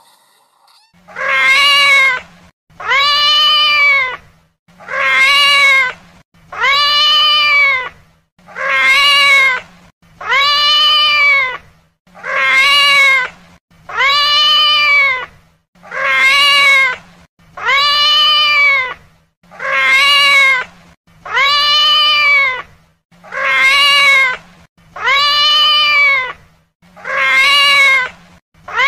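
A cat meowing: the same long meow, rising then falling in pitch, repeated about every two seconds, some fifteen times in a row.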